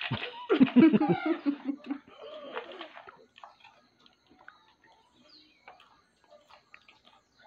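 A loud, muffled voice-like sound from a person with a mouth full of food, falling in pitch over the first two seconds along with a few thumps. Then faint, scattered crunches and clicks of chewing caramel popcorn and handling plastic bowls.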